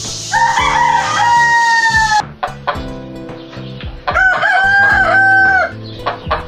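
Roosters crowing twice. The first crow is held and cut off abruptly about two seconds in. The second comes about four seconds in, with a wavering start, and lasts about a second and a half. Background music plays underneath.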